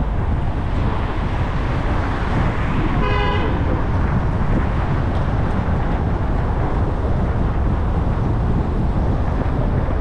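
Steady low rumble of city traffic, with one short car-horn toot about three seconds in.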